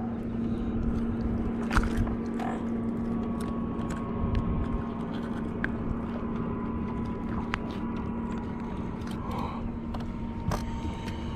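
A caught bass and fishing tackle being handled and unhooked: scattered small clicks and scrapes over a steady low hum from the boat.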